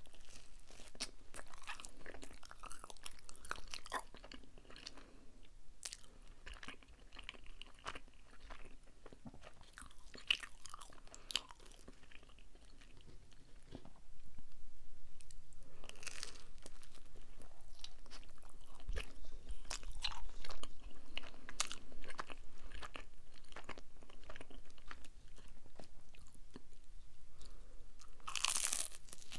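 Close-miked chewing and biting of Domino's cheese pizza, with crunchy crackles from the crust. The chewing gets louder about halfway through, and a loud crunchy bite comes near the end.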